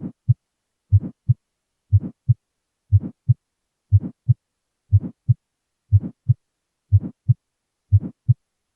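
Human heart heard through a stethoscope, beating about once a second. Each beat is a first heart sound (S1), then a brief early-systolic murmur, then a second heart sound (S2), with silence in diastole. This is an innocent murmur: short, mid-range in pitch, with normal S1 and S2.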